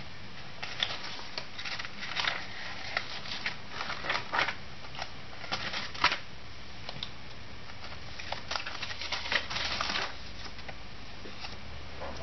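Paper and sticker sheets being handled on a tabletop: irregular light rustles and small clicks, with a sharper tap about six seconds in and a longer rustle near ten seconds.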